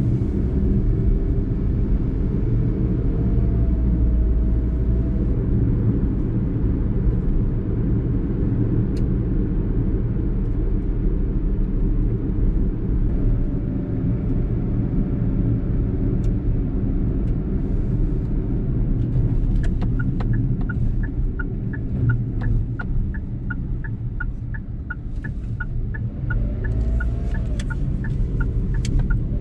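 Cabin sound of a Suzuki Alto on the move: its 660 cc three-cylinder engine and road noise give a steady low rumble, the engine note rising near the end as the car pulls away. From about two-thirds of the way through, the turn-signal indicator ticks steadily.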